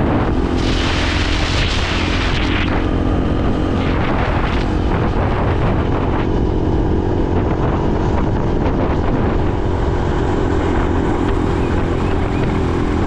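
Dual-sport motorcycle engine running steadily under way, mixed with heavy wind rumble on the microphone. A louder hissing rush comes in about half a second in and lasts about two seconds, with a shorter one near four seconds.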